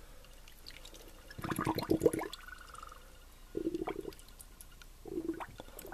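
Water sloshing and gurgling as a small plastic toy submarine is pushed under the water and fills, air bubbling out of it. There is a splashy burst about a second and a half in, then two short low glugs.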